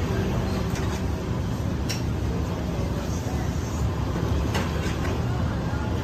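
Steady street traffic rumble, with a few faint clicks about one, two and four and a half seconds in.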